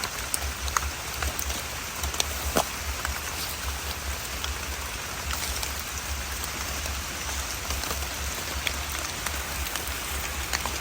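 Steady rain falling, with many scattered sharp ticks of drops striking nearby surfaces.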